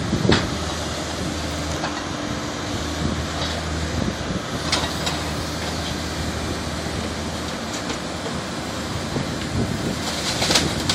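Backhoe engine running steadily while working, with a few faint knocks a little under halfway through.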